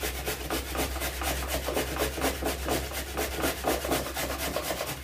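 A raw carrot being grated by hand on a grater: a steady run of rasping strokes, several a second, over a low steady hum.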